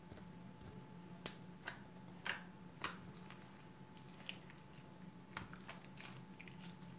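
Glitter slime made from glue and borax water, played with by hand. It gives scattered sticky clicks and small squelching pops, the sharpest a little over a second in.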